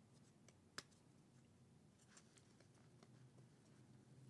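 Near silence with room tone, broken by one sharp click just under a second in and a few faint ticks a little after two seconds: dollar coins being handled and set down.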